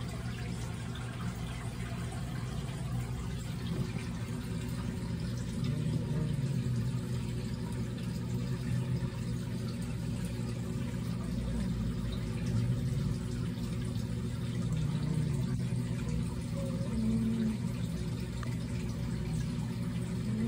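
A steady low hum, with a few faint wavering tones drifting above it.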